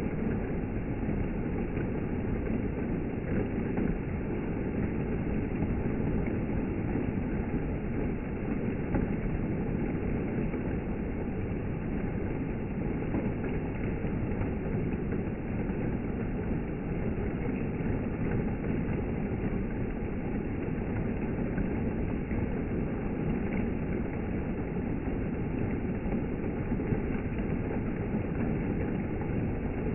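Rain and wind, a deep, even rushing noise that holds steady throughout.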